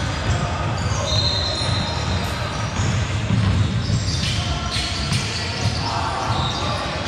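Basketball bouncing and thudding on a gym court during a pickup game, with players' footsteps and short high sneaker squeaks now and then, echoing in a large gym.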